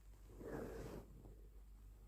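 A short, faint breathy sound from a person with the flu, lasting about half a second.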